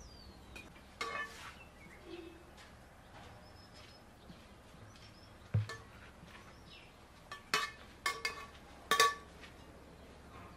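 A metal serving spoon clinking and scraping against a large metal pot and a plate as pilaf rice is dished out. There are a few separate ringing clinks, then a cluster of the loudest ones about seven and a half to nine seconds in.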